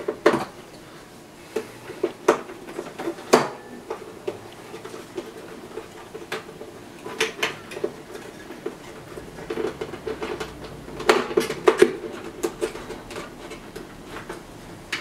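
Scattered clicks, taps and rattles of batteries and plastic parts being handled in the battery compartment of a 1985 Emerson portable TV-radio, with a denser run of clicks about eleven seconds in.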